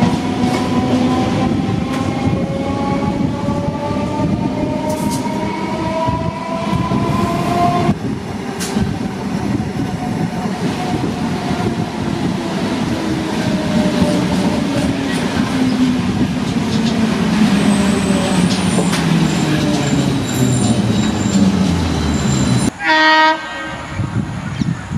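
Indian passenger train running past at speed: a steady rumble of wheels on rails, with tones gliding upward for the first eight seconds and then a slowly falling hum. About 23 seconds in, the sound cuts abruptly to a loud locomotive horn blast of about a second.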